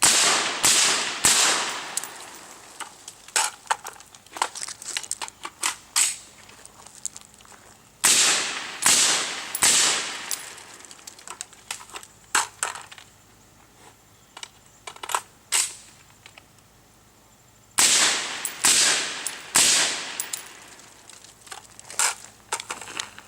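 Suppressed AR-15 in 5.56 with a SureFire SOCOM suppressor, fired in three quick strings of three shots each. Between the strings come short metallic clicks and clacks of a magazine change.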